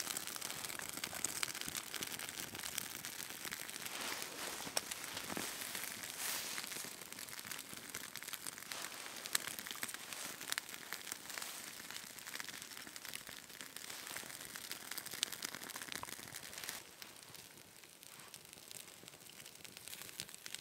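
Small fire of split dry kindling crackling as it catches, with many small snaps over a soft hiss; it gets quieter near the end.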